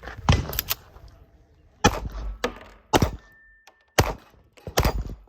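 CZ SP-01 9mm pistol fired one-handed at steel targets: a string of sharp shots about a second apart. A short steady ring is heard midway through.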